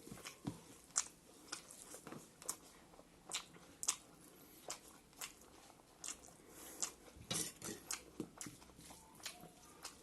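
A person chewing a mouthful of rice with greens and buffalo meat: a steady run of short, wet mouth clicks and smacks, two or three a second.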